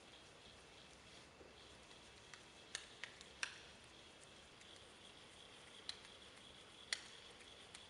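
Near silence: faint steady room hiss with a few faint, sharp, scattered clicks, a cluster around three seconds in and single ones near six and seven seconds, the one near seven seconds the loudest.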